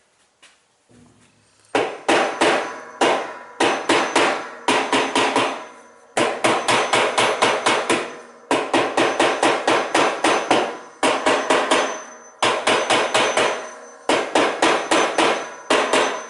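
Hammer striking a washing machine washplate that is fused onto the transmission shaft, in runs of quick blows, about four or five a second, with short pauses between the runs, trying to break it free.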